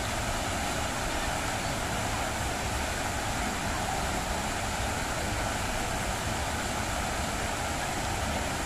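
Water from the jets of a large fountain splashing down into its basin: a steady rushing hiss.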